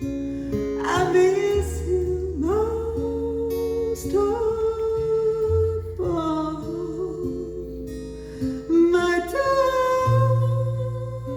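Live song: a woman singing long, held notes over an acoustic guitar, with low bass notes ringing under the voice.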